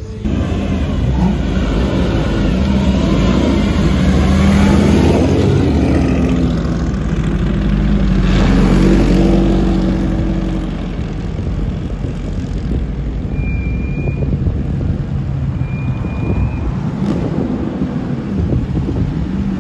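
Vintage race car engines, a Ferrari 250 GTO's V12 among them, revving and accelerating in street traffic. The engine note rises and swells twice, loudest about four and nine seconds in, then settles to a lower, steadier running note.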